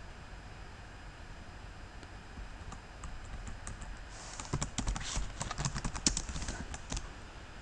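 Keystrokes on a computer keyboard: a few scattered taps, then a quick burst of typing for about three seconds that stops near the end.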